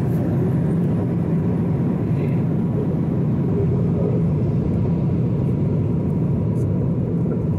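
Airliner cabin noise in cruise: a steady low rumble of engines and rushing air heard from inside the passenger cabin, with a faint steady tone above it.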